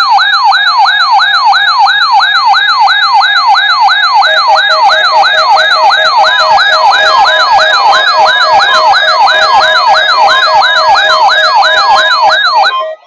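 Weather alert radio's alarm siren wailing in fast repeated sweeps, about two and a half a second, with a second alarm beeping rapidly that joins about four seconds in. Both cut off shortly before the end. The radios are going off on the weekly test signal.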